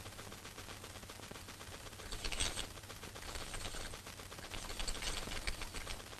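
Faint scattered bursts of distant gunfire over a low steady hum, the clearest about two seconds in and again near five seconds.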